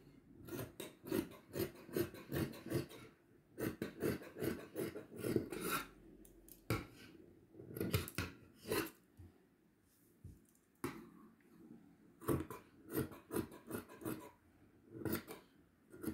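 Dressmaker's shears snipping through stretch velvet fabric in quick runs of cuts, a sharp stroke each time the blades close, with a brief pause a little past halfway.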